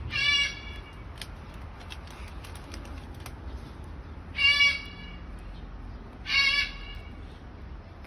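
Salmon-crested (Moluccan) cockatoo squawking: three short calls of about half a second each, one at the start, one about four and a half seconds in and one about a second and a half later.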